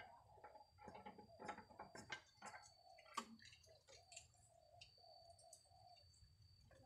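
Faint crackling and ticking from a small wood cooking fire, with one sharper click about three seconds in, over a thin steady high tone.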